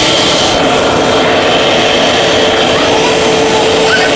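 Eureka Brushroll Clean SuctionSeal bagless upright vacuum (AS3401A) running steadily, a loud motor and airflow noise with a steady whine.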